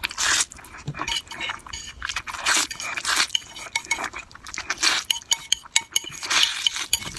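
Close-miked eating of noodle soup: chewing, with utensils clicking and clinking irregularly against a bowl, and short noisy bursts now and then.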